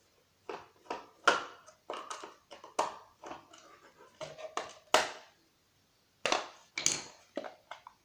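Irregular clicks, knocks and crackles of a plastic cordless phone handset casing and a small screwdriver being handled as the small screws are undone and the case is worked open.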